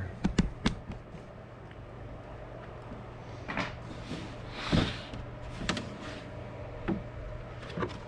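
Ridgid hard plastic tool case being unlatched and opened: a series of plastic clicks and knocks, with the loudest knock a little under five seconds in as the lid comes open, then a few more clicks.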